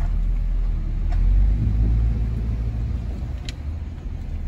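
Car engine and road rumble heard from inside the cabin as the car rolls slowly through a parking lot, swelling a little over the first two seconds and easing after about three. A single sharp click about three and a half seconds in.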